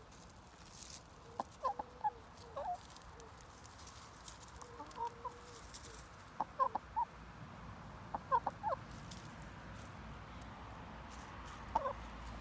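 Foraging hens clucking softly: short clucks in small bunches every couple of seconds.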